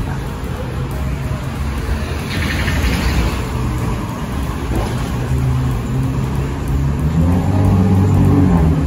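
Street traffic: motor vehicle engines running close by, with a short hiss about two seconds in, and an engine rising in pitch as a vehicle speeds up near the end.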